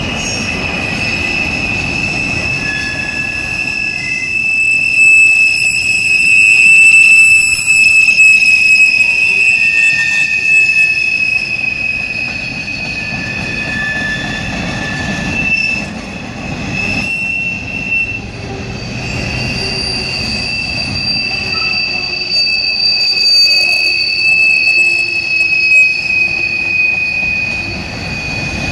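Freight cars of a CSX train rolling past, their wheels squealing steadily on the rail at a couple of high pitches over the low rumble of the train.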